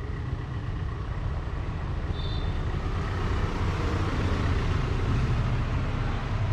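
Steady street traffic rumble, with a brief faint high tone about two seconds in.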